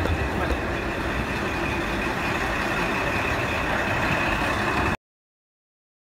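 JR KiHa 40 diesel railcar idling at a station platform: a steady low rumble with a constant high hum over it. It cuts off suddenly about five seconds in.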